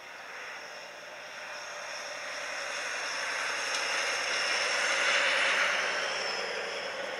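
Rushing hiss of a diesel Russell snowplow train ploughing through deep snow, swelling to a peak about five seconds in and then easing off.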